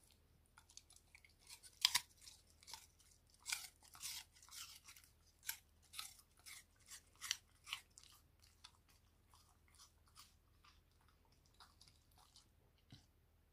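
Beagle chewing a piece of raw apple: a quick run of crisp crunches, loudest about two seconds in, growing fewer and fainter near the end.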